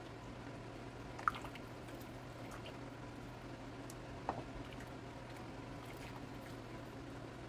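Faint wet handling sounds of a plastic spatula lifting cooked chicken breast out of slow-cooker broth: a couple of light clicks and soft squishes, about a second in and about four seconds in, over a low steady hum.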